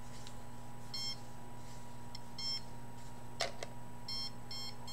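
Electromagnetic radiation meter's alarm beeping in short clusters of high-pitched pips, repeating a few times. A single sharp knock of handling about three and a half seconds in.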